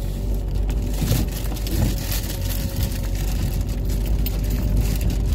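Inside a car's cabin: the engine runs steadily and the tyres rumble over rough, patched asphalt, with a few knocks and rattles from bumps between about one and two seconds in.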